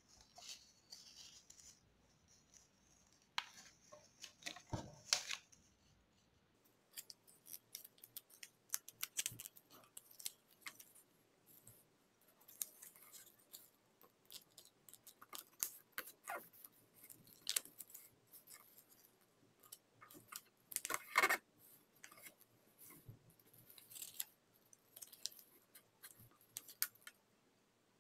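A sheet of paper being folded and creased by hand: irregular crisp rustles, slides and snaps of the paper as fingers run along the folds. The loudest burst of crinkling comes about three quarters of the way through.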